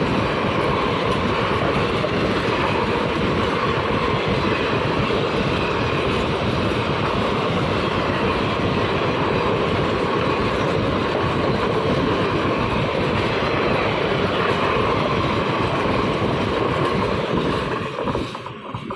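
Passenger coaches of an Indian Railways intercity express passing close by at speed: a steady, loud rolling rumble and rattle of wheels on rails. It falls away quickly as the last coach goes by near the end.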